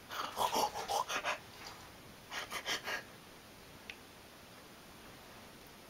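A young baby's soft breathy vocal sounds: a short run of small huffs and coos at the start, then a second quick cluster of breathy huffs about two and a half seconds in.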